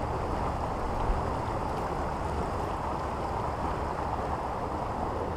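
Steady rush of river water tumbling through rapids below a spillway.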